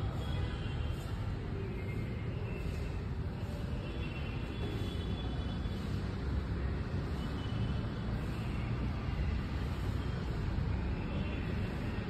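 Steady low rumble of background noise, with faint high-pitched chirping that comes and goes.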